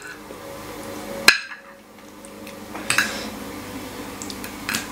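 Metal spoon and fork clinking and scraping against a ceramic plate during a meal. There are a few sharp clinks, the loudest about a second in, with lighter taps and scrapes between.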